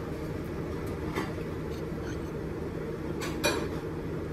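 Fork and utensils clinking against a plate during a meal: one clink about a second in and two louder ones close together a little after three seconds, over a steady background hum.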